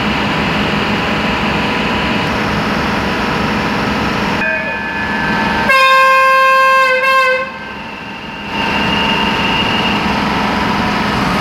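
Passenger train at a station platform: a steady engine rumble, broken about halfway through by a train horn blast of nearly two seconds, with a softer tone just before it.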